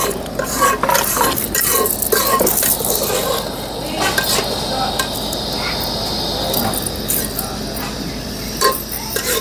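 A slotted metal ladle stirring food in a metal cooking pot on a gas stove, clinking and scraping against the pot again and again, with the food sizzling underneath.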